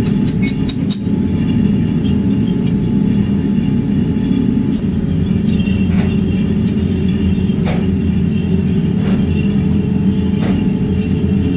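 Steady low rumble of running workshop machinery, with a quick run of sharp clicks in the first second and a few single knocks later on.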